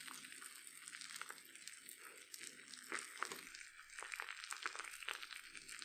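Slime fizzing and bubbling as it reacts with bath bomb powder: a faint, dense stream of small crackles and pops, with a few louder pops about three seconds in.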